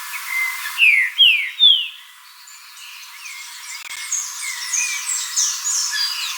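Green-winged saltator (trinca-ferro) singing: three loud down-slurred whistled notes about a second in, over a busy background of other small bird chirps and short whistles.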